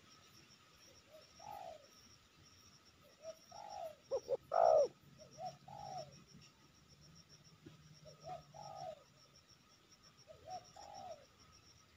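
Spotted doves cooing: short phrases of low coos that repeat every one to two seconds, the loudest a little after four seconds in.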